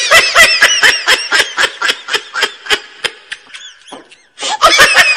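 High-pitched comic laughter in rapid 'he-he-he' pulses of about five a second. It breaks off a little past halfway and starts again near the end.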